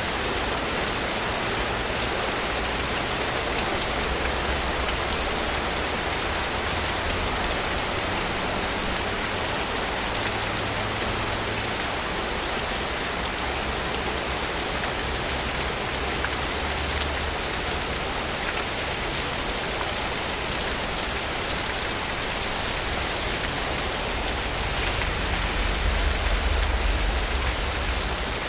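Steady rain falling in a city, an even hiss of drops on hard surfaces. A low rumble swells under it a few times, loudest near the end.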